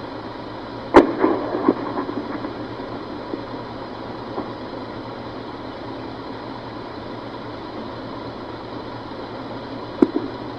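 A single loud gunshot about a second in, its echoes knocking and fading over the next second or so. Another shot, with a quick second report, follows near the end, over a steady engine-like hum.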